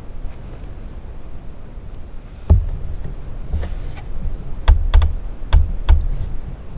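A few sharp clicks and knocks from handling at a computerized sewing machine, five of them in the second half, over a low steady hum.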